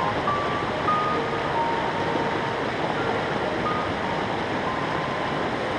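Steady rush of a rocky freestone mountain creek running over rapids, with a slow melody of long held notes from background music on top.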